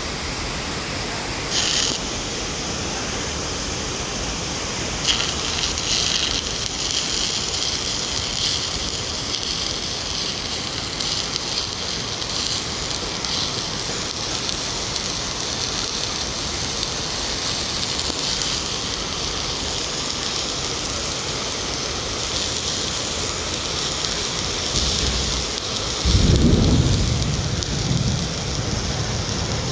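Stick (SMAW) welding arc burning on a carbon steel pipe: a steady sizzling hiss as the electrode melts into the joint. Near the end a brief, louder low rumble.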